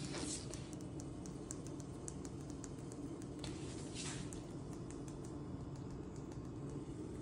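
A kitten's claws ticking lightly and irregularly on a hard laminate floor as it walks, over a steady low room hum. Brief rustling swishes come near the start and again about three and a half and four seconds in.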